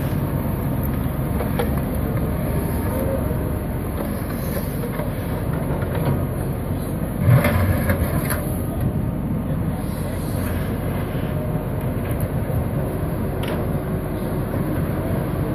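Wheeled excavator's diesel engine running steadily while it works, with a few knocks and one loud clank about halfway through.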